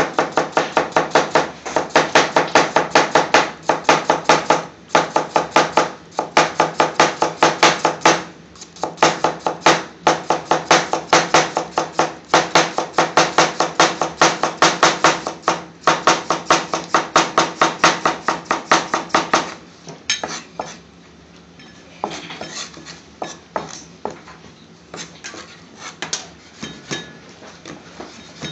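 Chef's knife slicing a cucumber on a plastic chopping board: rapid, even knocks of the blade on the board, several a second, with two brief pauses. About twenty seconds in the chopping stops and gives way to sparser, quieter knife taps.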